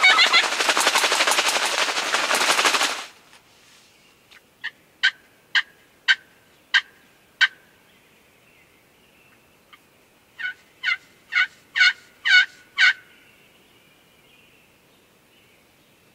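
Small collapsible umbrella flapped rapidly to imitate a hen turkey's wingbeats flying down from the roost: a loud fluttering rush that stops about three seconds in. Then two series of hen-turkey yelps, about six short notes each, a few seconds apart.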